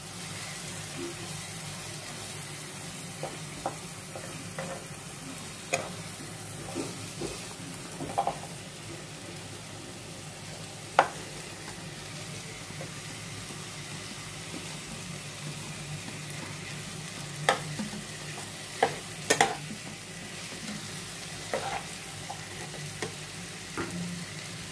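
Onion paste sizzling as it fries in oil in a non-stick pan, stirred and scraped with a spatula, with a few sharp clicks of the spatula against the pan. About halfway through, chopped mushrooms are pushed into the pan from a plate.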